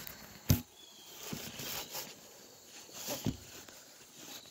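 Handling noise from a phone being set down on a stone ledge: one sharp knock about half a second in, faint rustles, and a softer knock about three seconds in.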